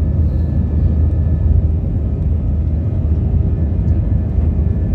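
Jet airliner's engines at takeoff thrust during liftoff and initial climb, heard from inside the cabin: a loud, steady low rumble with a faint steady whine above it.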